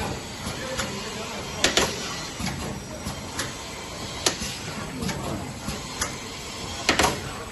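Automatic bottle capping machine and conveyor running: a steady mechanical noise with a loud clack about every two and a half seconds and lighter ticks in between.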